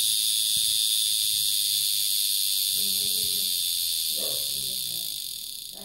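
Vulcain Cricket mechanical alarm wristwatch ringing: a loud, steady, high-pitched buzz from its alarm hammer vibrating against the membrane in the caseback. It fades over the last second or so as the alarm spring runs down, then stops.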